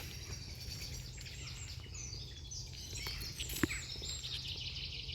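Wild songbirds singing, a busy run of short high chirps and twitters, over a steady low rumble. A single sharp click sounds about three and a half seconds in.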